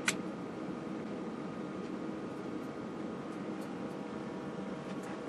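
A single sharp click as the signal generator's power switch is turned on, then a steady low hum and hiss.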